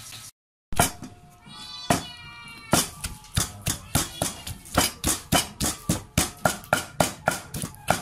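Wooden pestle pounding shallots, garlic and red chilies in a mortar: a few slow strikes, then steady strikes about three a second. A short, high, pitched cry about a second and a half in.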